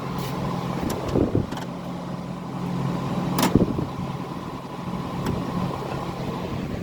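Amana 9,000 BTU PTAC heat pump with a rotary compressor running in heat mode, a steady hum under blower airflow. A few handling clicks and knocks on the unit's plastic, the sharpest about three and a half seconds in.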